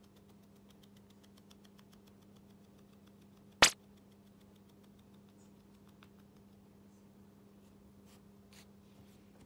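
Minuet kitten scratching its neck with a hind paw: a fast run of faint ticks, about eight a second, over a steady low hum. A single loud, sharp click about three and a half seconds in.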